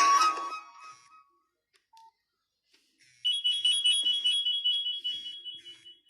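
Nokia 6500 slide phone playing its built-in tones: the last notes of one melody fade out in the first second. After a pause, a fast-pulsing electronic alert with a steady high tone running through it starts about three seconds in and fades away near the end.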